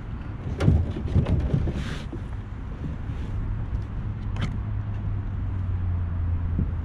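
Several sharp knocks and clatters from handling a fishing rod and gear aboard a plastic kayak, the loudest about a second in and another near the middle, with a brief hiss around two seconds. A steady low rumble runs underneath and grows stronger after the middle.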